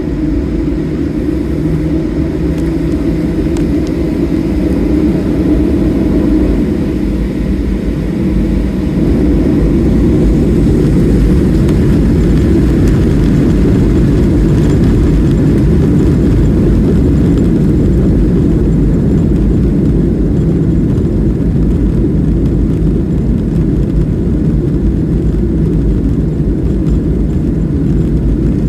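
Boeing 737-800's CFM56-7B jet engines running at takeoff power, heard as a loud, steady low rumble that grows louder about nine seconds in and then holds.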